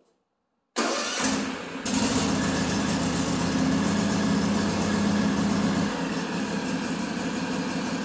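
Husqvarna TS248 XD riding mower's engine started with the key: the starter cranks it about a second in, it catches within about a second and then runs steadily, warming up.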